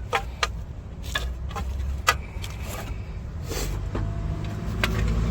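Scattered sharp metallic clicks and taps as an oxygen sensor is worked loose by hand from the exhaust, over a steady low hum.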